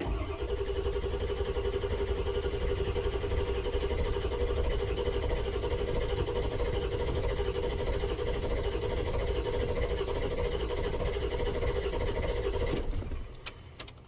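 Starter cranking a 1999 Ford F-250's 7.3L Powerstroke V8 diesel in a steady, even rhythm for about thirteen seconds without the engine catching, then the starter stops. This is a crank-no-start: the injectors are not yet firing.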